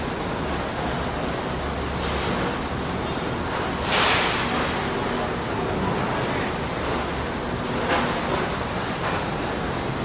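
Steady factory machinery noise, an even hiss with a faint low hum, and a brief louder hiss about four seconds in.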